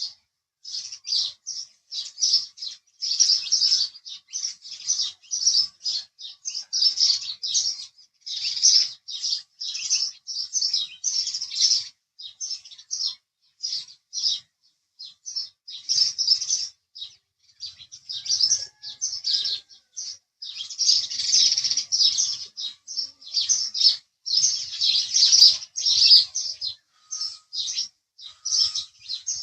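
House sparrow chirping: a fast, nearly unbroken run of short, high chirps with only brief pauses.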